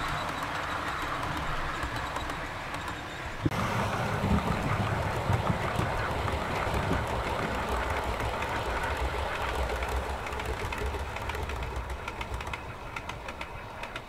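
OO gauge model train of Pullman coaches running along the layout's track, with light clicking from the wheels. The running noise fades near the end as the train moves away.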